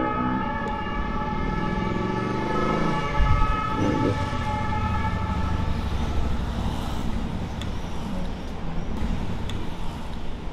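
City street traffic noise. A sustained ringing tone fades away over the first half, and a few faint sharp clicks come near the start and in the last few seconds, likely a wooden kendama ball landing on the cup or spike.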